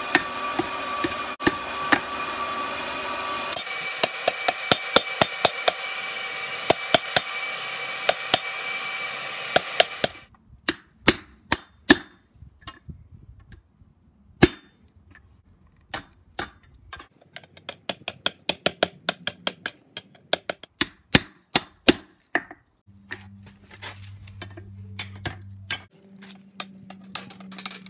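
Hammer blows on steel, shaping a piece of metal. For the first ten seconds a run of evenly spaced strikes, about two a second, goes over a steady machine drone. After about ten seconds the drone stops, and the hammering goes on as ringing single strikes and quick runs.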